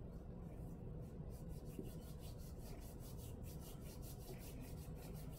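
A small child's hands rubbing and working damp bath bomb powder in a glass bowl: a faint, quick, scratchy rubbing of about four or five strokes a second, starting about a second in.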